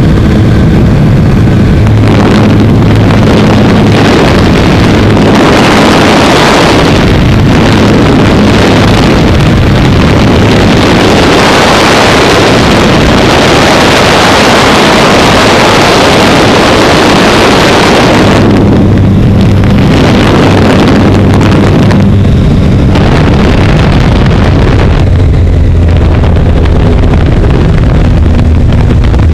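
Aerobatic biplane's engine and propeller heard from an on-board camera, with heavy wind rush on the microphone. For about the middle half the engine note is buried under a loud rush of air, then the steady engine drone comes back through.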